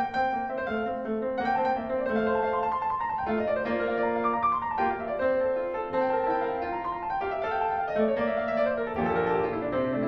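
Background piano music: a light melody with quick runs of notes up and down.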